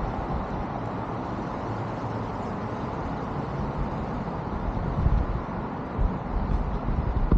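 Steady outdoor road-traffic noise, with a few louder low thumps from about five seconds in.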